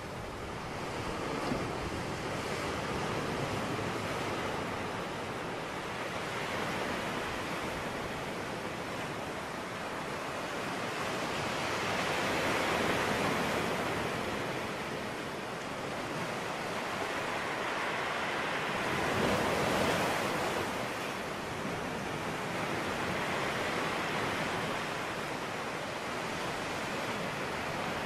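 Rushing noise of waves, swelling and easing irregularly every few seconds.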